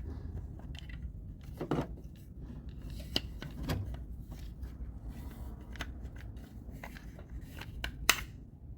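Scattered clicks and light knocks of a car's outer door handle being worked out of the door, with one sharp click about eight seconds in.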